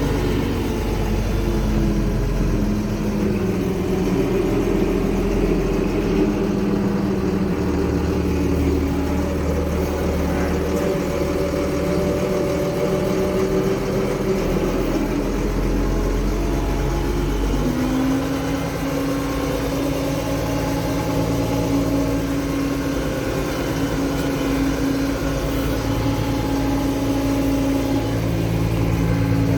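Tractor engine running steadily while towing a hay baler; about two-thirds of the way through the engine speed rises a little and then holds steady.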